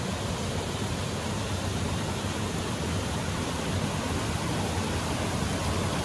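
Snowmelt stream or small waterfall rushing steadily.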